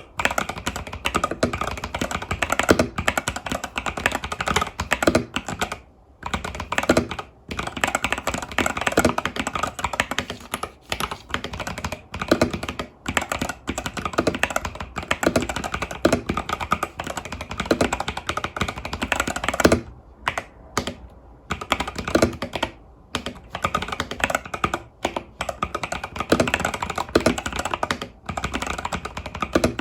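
Continuous fast typing on an Epomaker TH80 Pro mechanical keyboard with Epomaker Budgerigar tactile switches and stock keycaps, a dense run of key clacks with a few brief pauses.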